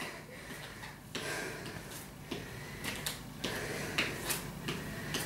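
Scattered soft taps and scuffs of trainers shifting on a hard floor, with heavy breathing as she recovers between exercises.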